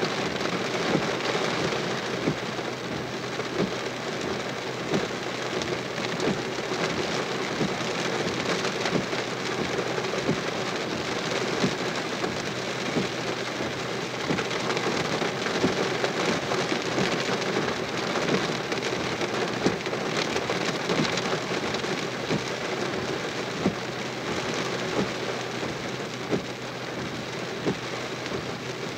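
Thunderstorm rain falling steadily, a dense patter of many individual drops hitting close by.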